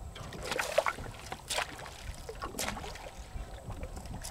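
A few short, sharp splashes or knocks at water level, about a second apart, over a low wind rumble on the microphone.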